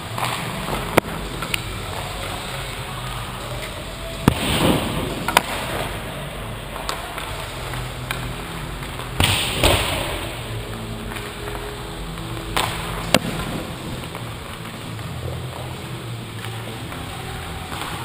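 Ice hockey play heard from a goalie's helmet: several sharp clacks of sticks and puck, with two short scraping hisses of skate blades on ice about four and nine seconds in, over a steady rink hum.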